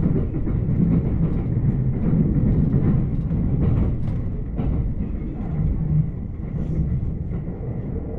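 Commuter electric train's rumble heard from inside the passenger car, a steady low noise with scattered light knocks.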